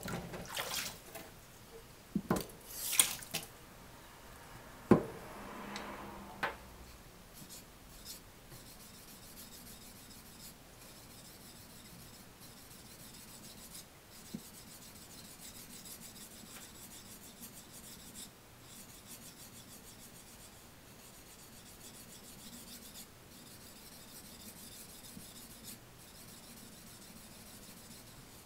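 A kogatana (small Japanese knife) being honed on a wet natural Okahana aoto whetstone: faint, steady back-and-forth rubbing of steel on stone. In the first few seconds, several sharp knocks and a brief hiss come as the stone is set into its wooden holder.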